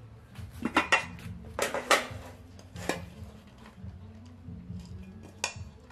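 Rice paddle knocking and scraping in a metal cooking pot while cooked rice is scooped out, with several sharp dish clatters, the loudest about two seconds in.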